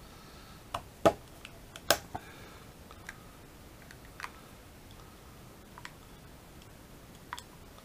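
Scattered clicks and taps of a small hand tool working a hard plastic model-kit part, with two sharper clicks about one and two seconds in and lighter ticks after them.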